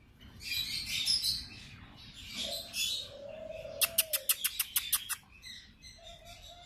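A mix of captive birds calling: busy high chirping, with low, arching coos from doves. Near the middle there is a fast run of about ten sharp, clicking chips, lasting about a second and a half.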